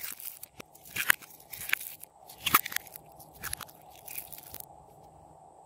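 Glossy pink slime being stretched and peeled off a plastic container by hand, giving irregular crisp sticky crackles and pops that stop about four and a half seconds in.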